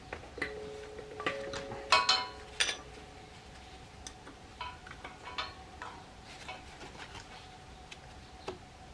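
Metal hand tools clicking and clinking against a broken exhaust stud in a motorcycle cylinder head as it is worked loose, with a brief metallic ring in the first couple of seconds. The loudest clanks come about two seconds in, then only scattered light clicks follow.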